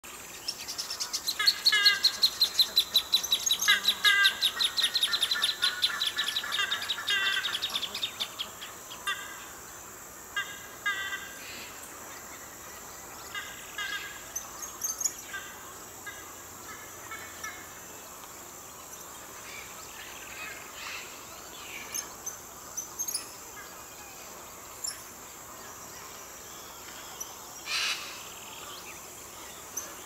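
Small birds calling: a fast run of repeated chirping notes for the first eight seconds or so, then scattered short chirps.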